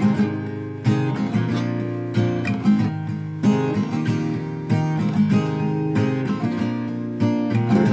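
Acoustic guitar strummed in a steady rhythm, an instrumental introduction to a song before the singing comes in.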